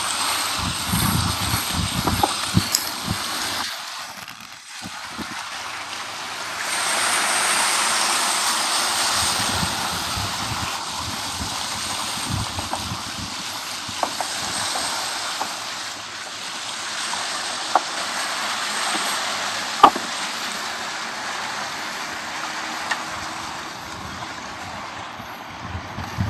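Beach ambience: surf washing on the shore as a steady hiss that swells about seven seconds in, with low rumbles of wind on the microphone early on and a few sharp clicks.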